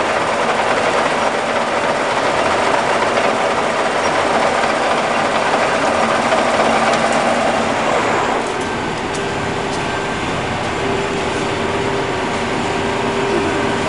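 Ryazan 163 (DIP300) engine lathe running, its headstock gearing giving a dense, steady mechanical whir. About eight seconds in the sound drops a little and settles into a steady whine.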